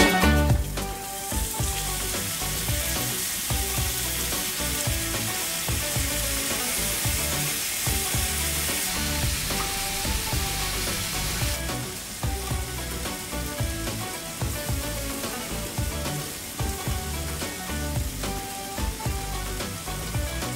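Shallots, garlic and chillies frying in oil in a pan as sardines in sauce go in: a steady sizzle that turns quieter about halfway through. Soft background music plays underneath.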